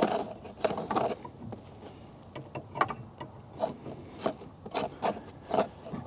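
Light clicks and knocks at uneven spacing, about one or two a second, as a spring-loaded tail light fastener is tightened down.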